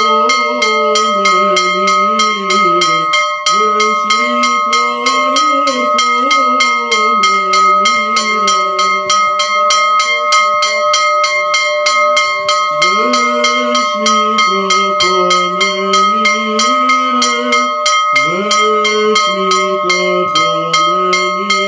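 A bell rung fast and evenly, about five strokes a second, its ringing tones held throughout. Under it is slow Orthodox memorial chanting, sung in long phrases.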